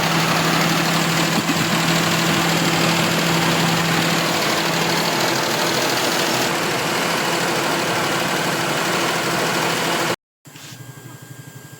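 Perodua Kancil's three-cylinder engine running, heard close up as a loud steady hiss with a hum. After a cut near the end it idles more quietly with an even pulse.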